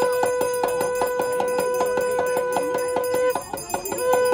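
Puja bell rung rapidly and continuously: a steady ringing tone over a quick, even rhythm of strikes. The ringing breaks off briefly a little over three seconds in, then starts again.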